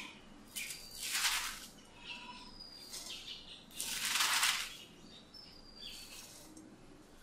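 Handfuls of washed, finely shredded cabbage dropped into a nonstick pan: soft rustling swishes, the two loudest about a second in and about four seconds in, with smaller ones in between and near the end.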